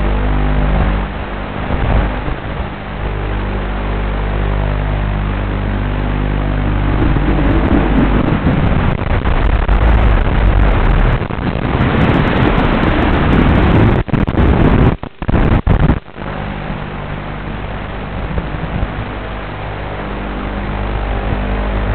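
FPV quadcopter's motors and propellers buzzing in flight, with rushing air noise. The sound grows louder in the middle and cuts out briefly a few times about two-thirds of the way through.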